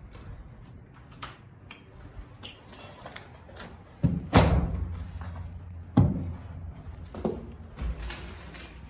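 Two loud thumps about two seconds apart, each ringing briefly, with softer knocks and scuffs around them.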